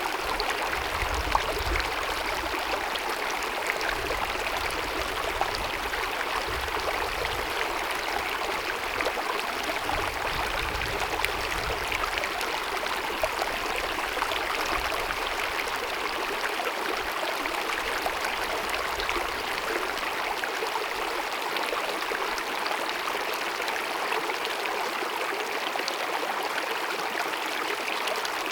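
Small mountain meadow stream cascading over rocks: steady, even babbling and rushing of running water.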